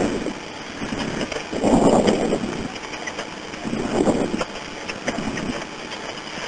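Telephone-line hiss on a recorded 911 call, with a few muffled, indistinct swells of sound and faint clicks.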